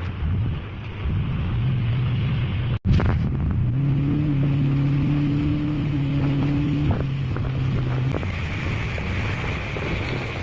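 Wind buffeting the microphone with a low rumble, joined by a steady low engine hum from about four to eight seconds in. The sound drops out briefly about three seconds in.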